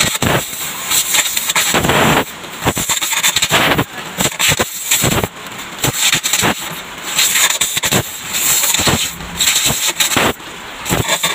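Stick welding of a sheet-steel car floor patch panel: the arc crackles and sizzles loudly in short runs that start and stop again and again as the seam is stitched.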